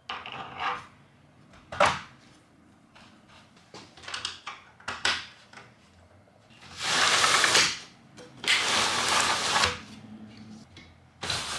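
Hand work on a window-blind frame: small clicks and taps, then two rasping, rattling bursts of about a second each midway, with a sharp click near the end.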